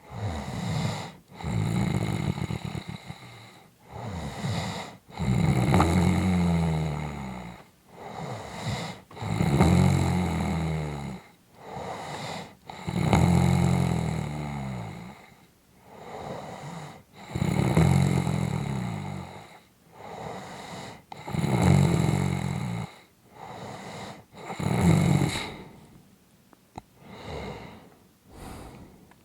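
A person snoring in a steady rhythm: a long snore about every four seconds, with a shorter, weaker breath sound between each. The last few breaths near the end are softer.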